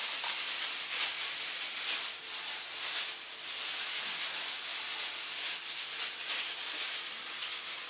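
Steady sizzle of food frying in a pan on the stove, with a plastic bag crinkling now and then.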